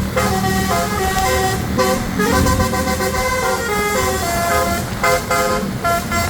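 Bus's telolet basuri musical air horn playing a quick melody of short horn notes, several tones at once, over the low rumble of the bus engine.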